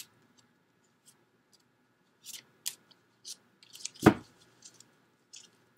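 Tarot cards being handled: a scatter of short, crisp snaps and flicks of card stock, with one louder knock about four seconds in.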